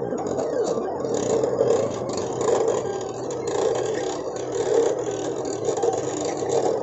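Silhouette Cameo cutting machine running a print-and-cut job. Its motors whir as they drive the cutting mat back and forth under the rollers and move the tool carriage. The whir rises and falls in loudness as it goes.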